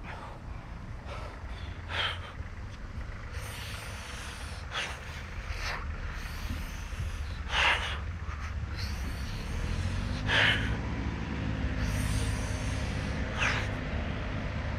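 Sharp, forceful exhalations from a man straining through a set of five pull-ups, about six breaths in all, a second or three apart. Under them runs a low, steady rumble.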